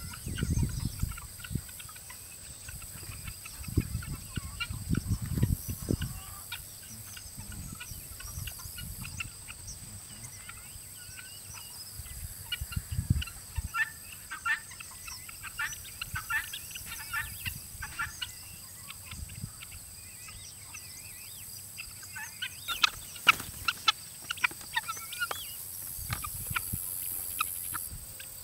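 A flock of chickens clucking, with many short overlapping calls throughout that grow busier in the second half. A few low thumps come near the start.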